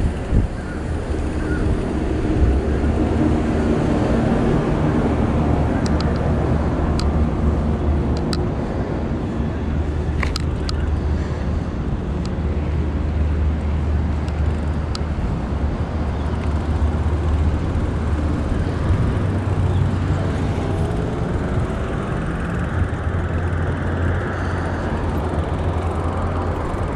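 Road traffic: cars passing on a city street over a steady low rumble, with a few faint sharp clicks in the middle.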